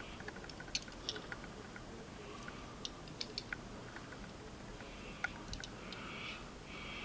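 Scattered light clicks and taps of a small 1:64 diecast model car being handled and turned over in the hands, with a soft rustle near the end.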